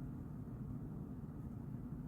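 Steady low background hum with no distinct events: room tone.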